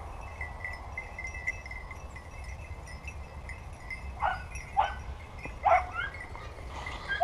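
Young hunting-dog puppies, five and six months old, give four short barks in the second half. A faint, steady high jingle like small bells goes on throughout.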